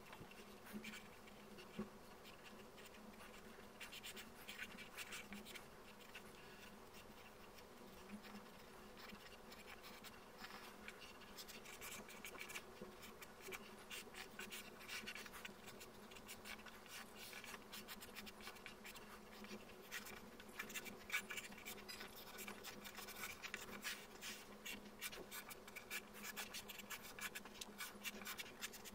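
Graphite pencil scratching across paper in quick sketching strokes that come in clusters, faint and close up. A low steady hum runs underneath.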